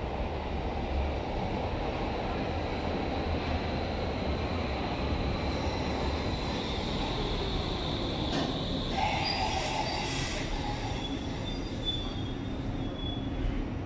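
Berlin U-Bahn train pulling into an underground station and braking to a stop, its running gear rumbling steadily. A high wheel-and-brake squeal joins in the second half as it slows.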